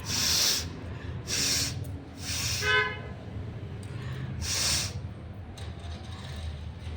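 A person blowing their nose hard four times in short blasts. The third blow ends in a brief honking tone. The blowing is dry, with no cold behind it.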